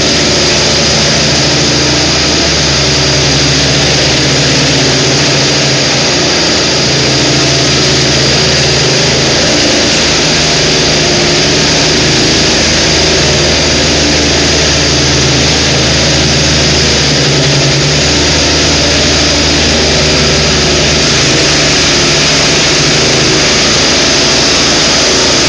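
Ride-on power trowel's engine running steadily with its twin rotors working a concrete slab, its pitch shifting slightly now and then, with a steady high whine over the machine noise.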